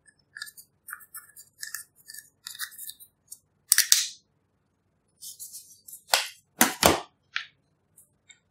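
Long acrylic fingernail scratching and scraping pressed eyeshadow out of a plastic palette in quick, crisp strokes. There are sharp knocks about four seconds in and again twice between six and seven seconds.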